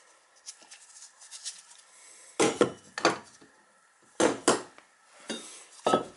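Metal bathtub drain fittings, galvanized and brass pipe pieces, knocking as they are picked up and set down on a wooden surface: about six sharp clunks in the second half, two of them in quick pairs.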